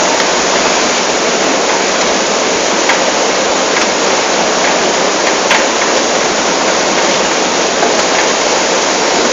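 Cassava washing machine running: a steady rush of water with a faint hum underneath and a few short clicks scattered through it.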